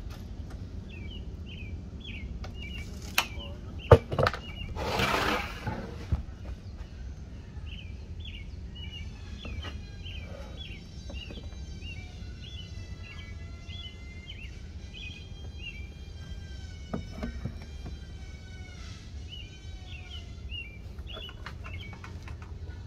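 Small birds chirping in repeated short phrases over a steady low outdoor rumble. A few sharp knocks from boards being handled on a workbench come about three to four seconds in, the loudest among them a single sharp knock, followed by a brief rushing hiss lasting about a second.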